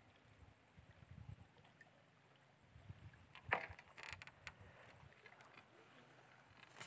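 Faint water sloshing from wading in swamp water: soft low thuds at first, then a small splash about three and a half seconds in and a few light clicks just after.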